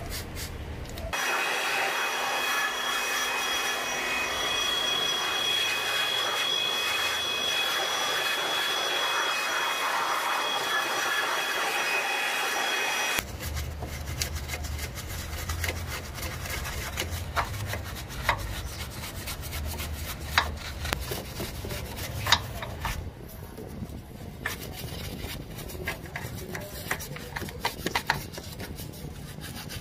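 A small stiff-bristled brush scrubbing greasy metal around a car's engine mount: scratchy back-and-forth strokes with light clicks of bristles and brush against metal. Before that, for the first twelve seconds or so, a steady hiss with faint high whistling tones runs and then cuts off suddenly.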